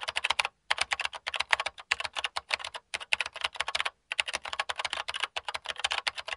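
Computer keyboard typing sound effect: rapid key clicks, about ten a second, in runs broken by a few short pauses.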